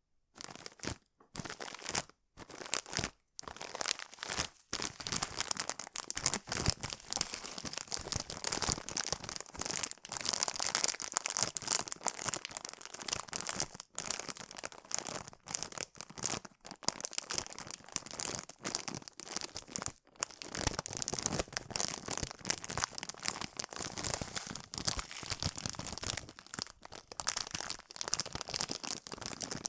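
A plastic bag of noodles being crinkled and rustled, a dense run of crackles. It comes in short bursts with brief pauses for the first few seconds, then runs on almost without a break.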